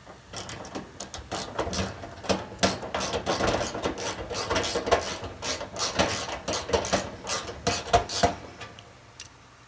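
Hand nut driver turning a hex-head sheet-metal screw in an Amana electric dryer's metal cabinet panel: a dense run of small metallic clicks and rattles that stops about eight and a half seconds in.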